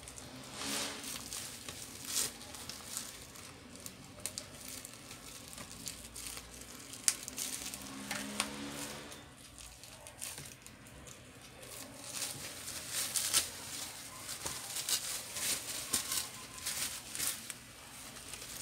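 Handling noise: a plastic sheet rustling and crinkling, with scattered clicks and taps of plastic laptop parts as a screen panel is fitted into its lid. One sharper click stands out about seven seconds in.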